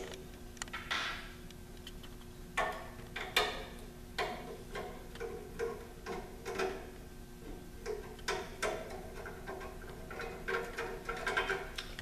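Flathead screwdriver turning out small screws from a micro switch's sheet-metal mounting frame: irregular metallic clicks and short scrapes as the blade catches and slips in the screw slots.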